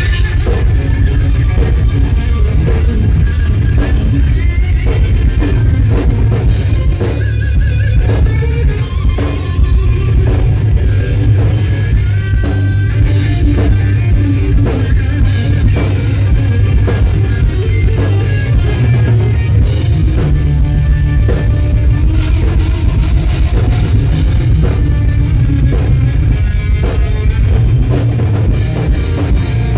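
Live hard rock band playing loud: an electric guitar carries the lead over a pounding drum kit and bass.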